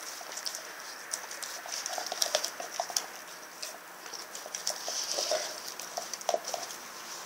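A Rottweiler gnawing and licking at a whole raw turkey: irregular wet smacks and small clicks of teeth on the bird.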